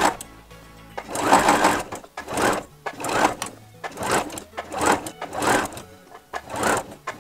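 Domestic sewing machine stitching in short runs, starting and stopping about six times as the fabric is fed through.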